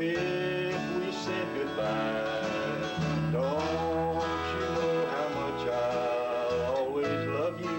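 Country instrumental break in D: a dobro played with a slide bar takes the lead with gliding notes, over a strummed acoustic guitar and an electric bass.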